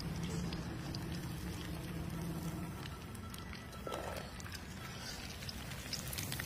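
Banana pieces deep-frying in a large kadai of hot oil, sizzling and crackling steadily while a wire skimmer stirs and lifts them. A low hum fades out about three seconds in.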